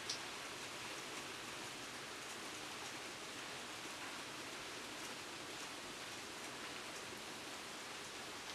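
Steady rain falling, an even hiss with scattered faint drop ticks and one sharper tap just at the start.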